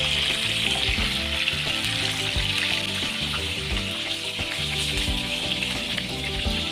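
Pork belly sizzling steadily in its rendered fat on a flat frying pan, with background music playing along.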